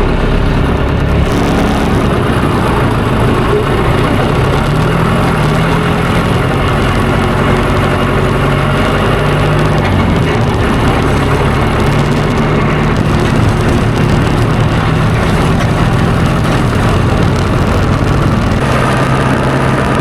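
Tractor diesel engine running steadily under load while raking hay, its engine note shifting a few times.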